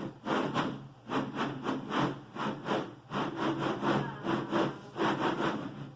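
Rhythmic crunching of a crisp snack being chewed close to the microphone, about three crunches a second.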